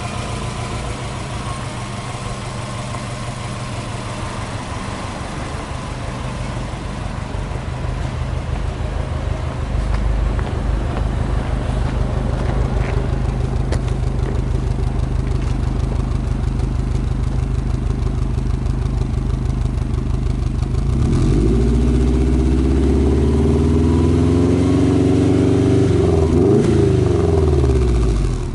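Subaru Impreza WRX STi Version V's turbocharged flat-four running at a steady idle, first heard near the open engine bay and then louder at the exhaust tip. About 21 seconds in it is revved: the pitch climbs and holds, dips and rises once more, then falls back near the end.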